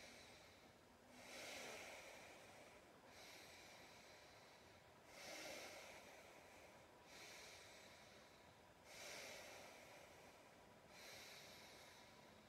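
Faint, slow, deep breathing during a yoga hold, with soft drawn-out breaths in and out, each lasting about two seconds.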